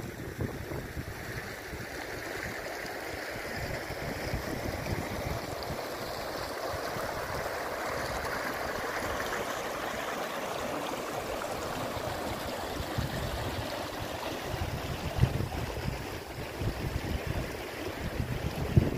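Shallow mountain river rushing over stones, a steady hiss of running water. Wind buffets the microphone at the start and again near the end.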